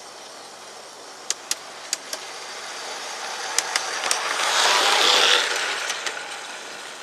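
Model Alco diesel locomotive in Union Pacific livery running along a garden railway and passing close by. Its running noise swells to a peak about five seconds in and then fades away, with a few sharp clicks as it approaches.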